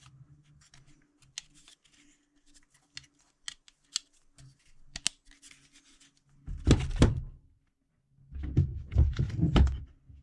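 Small scattered clicks and taps, then two louder bursts of knocking and rattling, about six and eight seconds in: a cordless jigsaw being handled as its tilting base plate is set back to 90 degrees. The saw's motor does not run.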